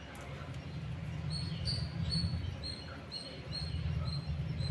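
A small bird calling: one short high chirp repeated evenly, about two and a half times a second, starting about a second in. A low rumble runs underneath.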